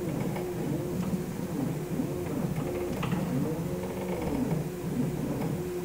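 CNC router's rack-and-pinion gantry drive motors whining as the head makes a series of moves. Each move is a tone that rises in pitch and falls back, about half a second to a second long, over a low hum.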